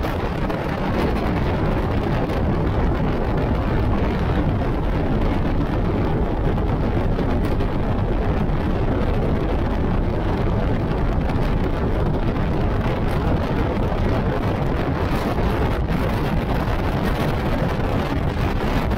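Motorcycle cruising at a steady speed: a constant rush of wind over the microphone mixed with the bike's running noise, with no changes in speed or pitch.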